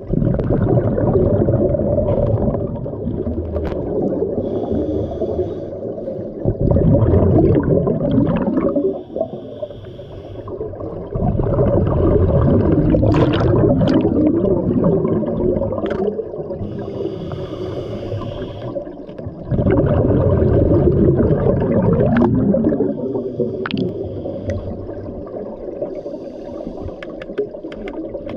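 Scuba diver breathing underwater through a regulator: long, loud bubbling exhalations every several seconds, with quieter hissing inhalations between them.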